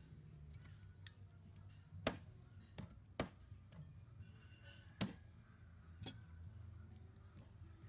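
Meat cleaver striking a raw whole chicken on a wooden chopping board: a handful of sharp, unevenly spaced knocks, the loudest about two, three and five seconds in.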